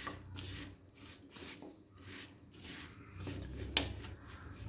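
Silicone spatula stirring and scraping lumps of jaggery around an aluminium wok: a run of soft scrapes, about two a second, with one sharper knock near the end.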